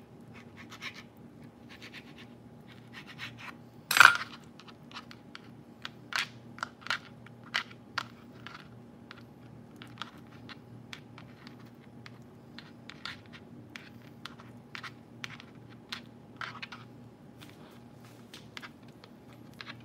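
A table knife set down with one sharp clack on a plastic cutting board about four seconds in, then light taps and scrapes of fingers and the knife handling ham slices on the board, over a faint steady hum.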